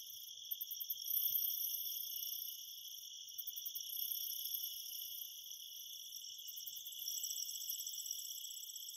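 Insects trilling: a steady, high-pitched chirring, with short pulsed trills in the highest pitch about every three seconds.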